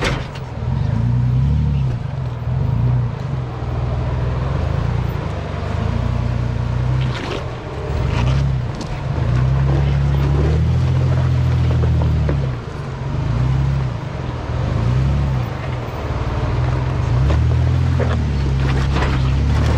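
Jeep Wrangler Rubicon engine pulling at low speed under load as it rock-crawls, its revs rising and falling again and again.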